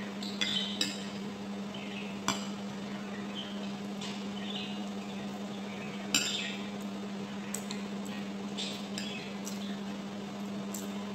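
A metal spoon and fork clink and scrape against a ceramic dinner plate while someone eats. The sharp clinks come scattered: a few near the start, one about two seconds in, one about six seconds in, and several more toward the end. A steady low hum runs underneath.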